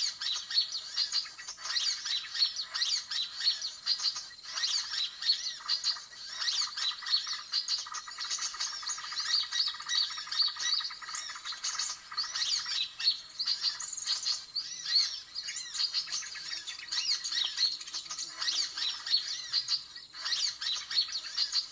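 Dense, continuous chattering and twittering of many small birds, the 'suara ribut' noisy-flock call recording that bird trappers play as a lure to draw small birds such as sunbirds in.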